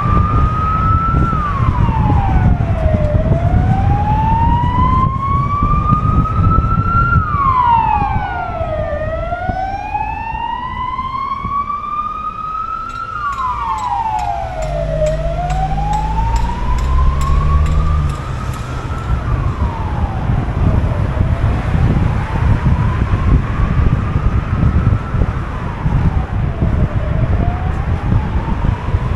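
An emergency vehicle's siren wailing: a slow rise and a quicker fall in pitch, repeating about every six seconds, with a second offset wail overlapping for a few seconds about a third of the way in. Low rumble of road noise runs underneath.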